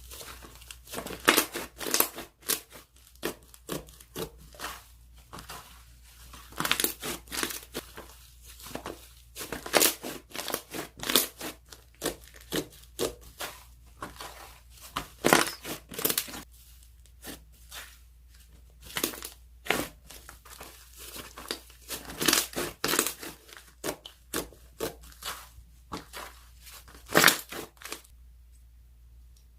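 Hands squeezing and poking slime, making irregular clusters of sharp crackles and pops that stop a little before the end.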